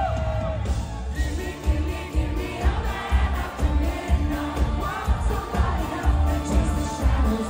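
Live pop music: a woman singing into a microphone over a band with a steady bass beat. A long held sung note ends about half a second in, and shorter sung phrases follow.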